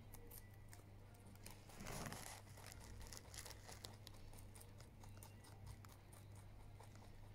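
Lop-eared rabbit chewing fresh leafy greens, faintly: a run of small crunching clicks, with a louder rustling tear about two seconds in as it pulls a mouthful of leaves from the bunch.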